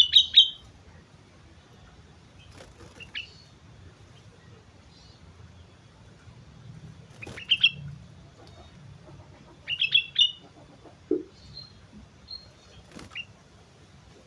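Sooty-headed bulbul (kutilang) singing in short, bright phrases of a few quick notes, about five phrases a few seconds apart, the loudest at the very start.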